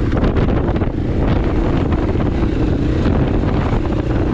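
Dirt bike engine running steadily under way on a trail, its note wavering slightly with the throttle, with wind buffeting the microphone.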